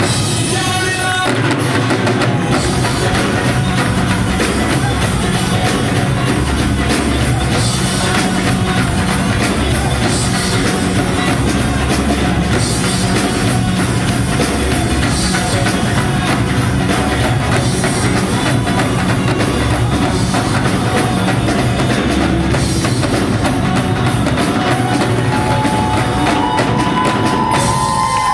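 Live music from an ensemble of dhol drums played together with a drum kit and electric guitar, a dense, driving beat. The deepest bass drops away near the end.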